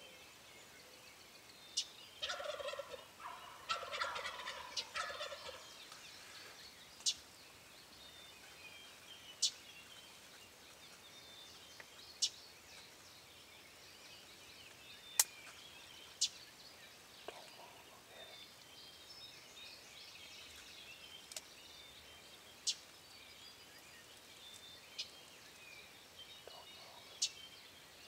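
Wild turkey gobbler gobbling: two rattling gobbles close together a couple of seconds in, with fainter calls later. Short sharp high chirps from other birds are scattered throughout.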